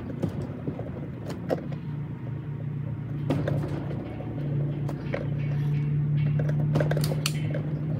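A hand Phillips screwdriver being twisted into the plastic wall of a Yeti Roadie 24 cooler to start pilot holes, giving scattered clicks and scrapes. Under it runs a steady low hum that grows louder in the second half.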